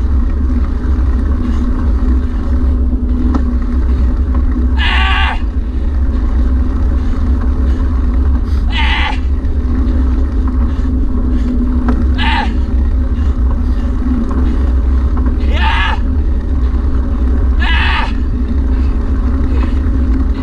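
Steady low engine hum of a slow-moving vehicle, with a constant droning tone, broken five times by brief high-pitched calls a few seconds apart.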